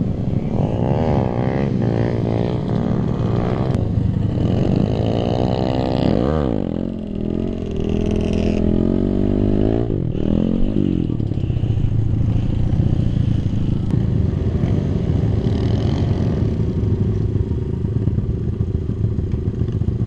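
Kawasaki KLX/D-Tracker single-cylinder four-stroke motorcycle engine revved up and down repeatedly, its pitch rising and falling in sweeps while riding wheelies. About ten seconds in, the revving stops and the engine runs at a steady, lower speed.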